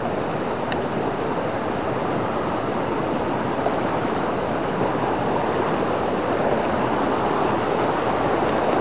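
Mountain torrent rushing and splashing over boulders and small cascades, a steady, even rush of water.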